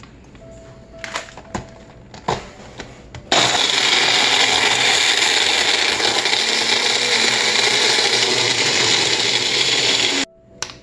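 A few knocks as the blender cup is handled and set on its base. Then, about three seconds in, a La Rêveuse personal blender starts and runs steadily for about seven seconds, blending ice with milk and cocoa mix into a slush, and cuts off suddenly near the end.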